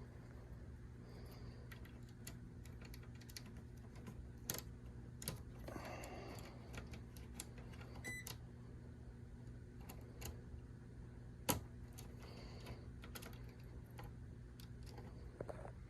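Scattered light clicks and taps from handling HVAC low-voltage wiring and test equipment, over a steady low electrical hum, with one short beep about eight seconds in.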